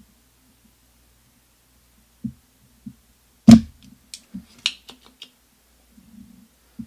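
A spring-loaded solder sucker (vacuum desoldering pump) fires once with a sharp snap about three and a half seconds in, pulling molten solder off a circuit-board joint. A couple of soft knocks come before it and a few light clicks and ticks follow as the tool is handled.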